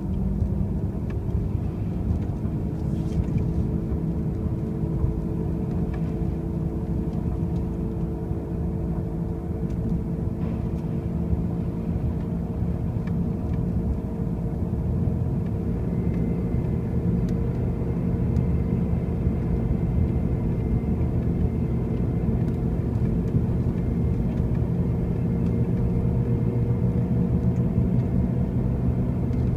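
2005 Pontiac Grand Prix driving, with a continuous loud noise made of a low drone and several tones that drift slowly in pitch. The noise remains although the car has brand new wheel bearings and new tires, and its cause is unknown.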